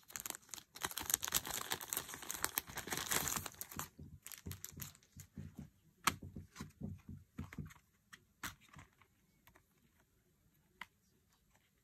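Packaging crinkling and rustling as it is handled: dense for the first few seconds, then sparser rustles and clicks that die away over the last few seconds.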